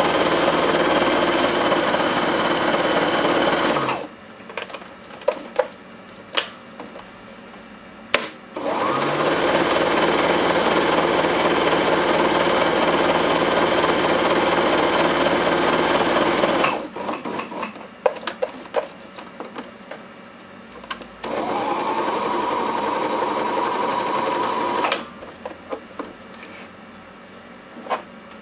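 White electric sewing machine stitching a seam in three runs: about four seconds, then a longer run of about eight seconds, then a short one of about four seconds. Between the runs it stops, and scattered light clicks and taps come from handling the fabric at the machine.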